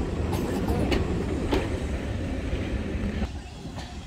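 Railway passenger carriages rolling slowly past on the track: a low rumble with irregular clicks of the wheels over rail joints. The sound drops away about three seconds in.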